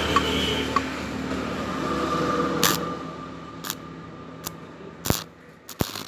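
Stick-welding arc being struck on a joint between thin galvanized and mild steel pipe: after a steady hum, about five short, sharp arc crackles come in the second half as the electrode tacks the joint.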